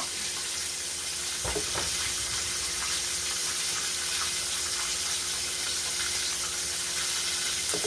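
Breaded chicken frying in hot oil in a pan: a steady sizzle, with a single soft knock about a second and a half in.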